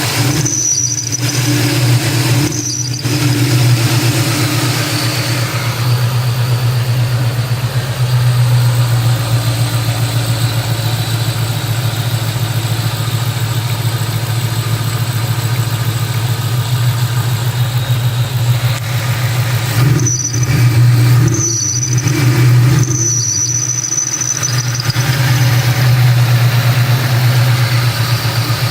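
The supercharged 4.6-litre V8 of a 2003 SVT Cobra runs steadily while short high-pitched squeals come from the accessory belt drive, a couple near the start and several more about twenty seconds in. The squeal is the sign of a bad belt tensioner.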